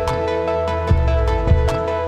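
Electronic background music: sustained synth chords over a deep bass, with regular drum hits.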